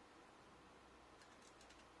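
Near silence with room tone, and a few faint light clicks in the last second from small laptop parts being handled during reassembly.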